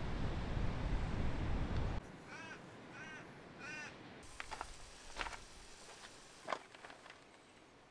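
A crow cawing three times in quick succession, after a loud rushing noise that cuts off abruptly about two seconds in. A few sharp clicks follow near the end.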